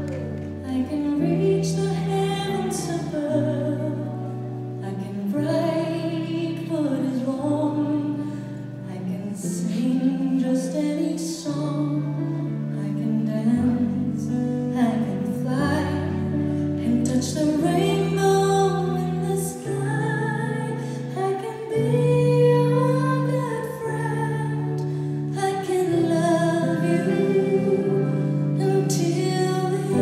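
A woman singing live into a microphone with band accompaniment, her voice gliding over held bass notes that change every second or two.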